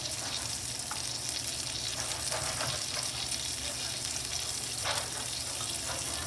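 Food sizzling steadily in a frying pan on the stove, with a few soft scrapes of a spoon stirring a pot of grits.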